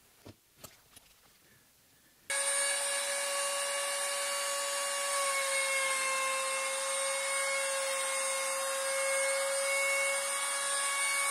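A few light knocks, then a compact trim router starts at full speed a couple of seconds in with a steady high whine as it cuts an arc in plywood on a trammel, its pitch dipping slightly under load in the middle.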